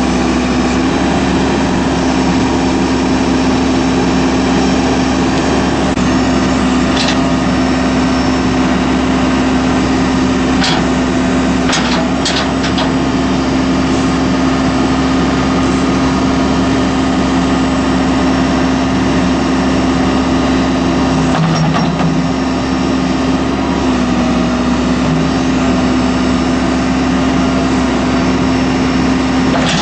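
Case 580M backhoe loader's diesel engine running steadily at a constant speed, with a few short knocks partway through.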